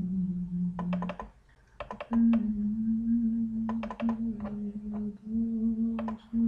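Quick clusters of clicks from a computer keyboard and mouse, a few clicks at a time, several times. Under them a man hums a steady low note that breaks off for a moment and resumes slightly higher.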